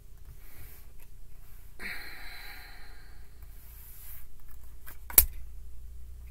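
Tarot cards handled and laid out on a tabletop, with one sharp tap of a card or the deck against the table about five seconds in. A short hum-like voice sound about two seconds in.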